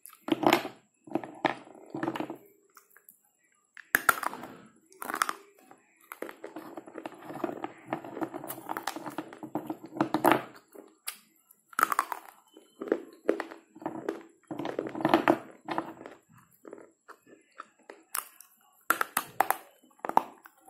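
Slate pencils being bitten and chewed: a series of sharp crunching snaps as pieces are bitten off, with longer stretches of dry crunching chewing in between.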